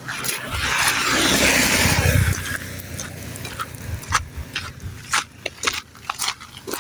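A motor vehicle passing close by: a rushing noise with a low rumble that swells and fades over about two seconds. Short scattered clicks follow.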